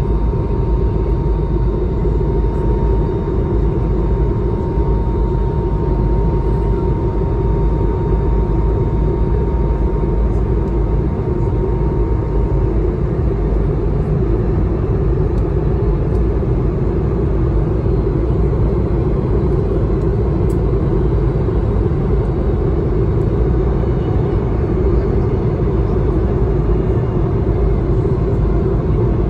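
Steady cabin noise of an Airbus A220-300 climbing after takeoff: the drone of its Pratt & Whitney PW1500G geared turbofan engines and rushing airflow, heard from inside the cabin. A faint steady whine sits on top and fades out about twelve seconds in.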